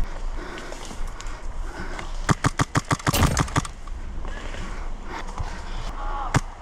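Airsoft gun firing a quick string of about ten shots, lasting just over a second, about two seconds in; one more single shot near the end.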